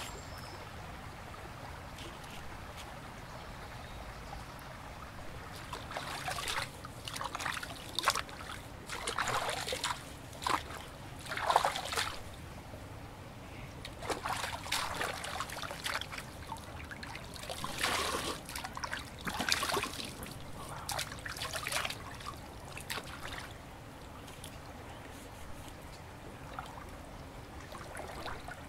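Hands splashing and rubbing in shallow creek water, in irregular bursts from about six seconds in until a few seconds before the end; quieter steady background before and after.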